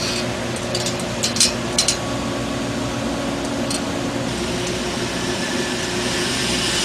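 Light clicks of small mounting hardware being pressed into a billet grille, a handful of them, most in the first two seconds, over a steady hum of the room.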